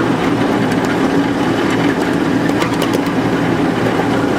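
Ride-on miniature train running: a steady engine hum with a few faint clicks.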